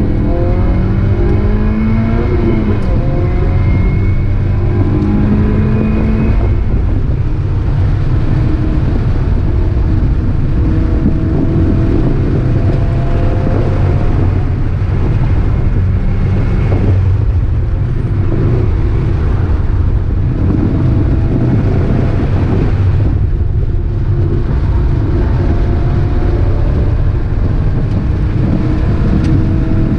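Mazda Miata four-cylinder engine under hard acceleration on track, its pitch rising again and again through the gears, with a brief lift about two-thirds of the way through, over a steady low drone and road noise.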